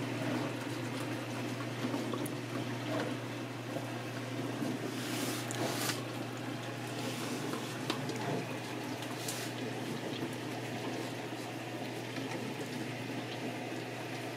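A dog eating and licking food from a plate, a wet, lapping sound with a few short clicks against the plate, over a steady low hum.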